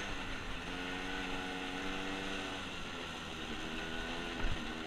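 Arctic Cat ATV engine running under steady throttle, its note dipping slightly about halfway through. A single low thump comes near the end.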